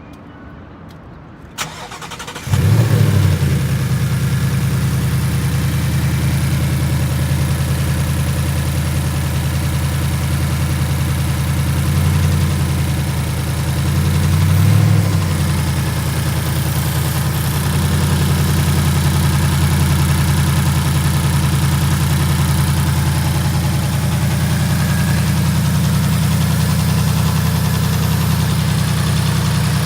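A 2018 Ford Mustang GT's third-generation 5.0 L Coyote V8 starting: a click, then it catches with a flare about two and a half seconds in and settles to a steady idle. The engine speed rises and falls briefly twice, around twelve and fifteen seconds in.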